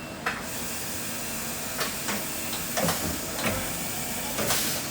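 XYZ 710 vertical machining centre running its warm-up program: a steady hiss comes on sharply about a third of a second in, with a few short knocks and clicks over it.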